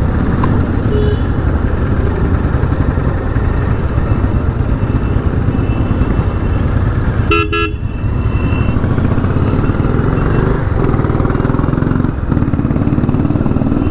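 Motorcycle running on the road, a steady low rumble of engine and road noise, with a short vehicle horn toot about halfway through.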